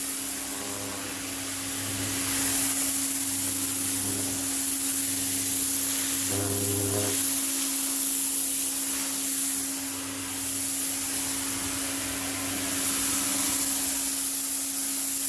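Greenworks 2000 psi electric pressure washer running: a steady motor-pump hum under the loud hiss of the rotating turbo-nozzle jet spraying the stair steps.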